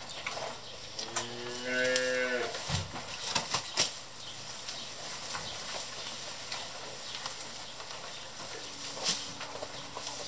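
A calf moos once, about a second in, a call of about a second and a half. A few sharp knocks follow shortly after, and another comes near the end.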